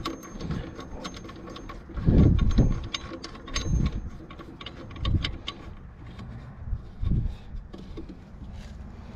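Hand work on a lawn mower's blade carrier and bolt: scattered light metal clicks and several dull knocks, the loudest about two seconds in, as the bolt is fitted back in.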